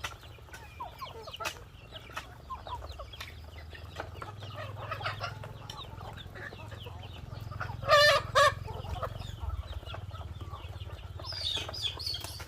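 Free-range chickens clucking and calling, with many short calls throughout and two loud, brief squawks about eight seconds in. A steady low hum runs underneath.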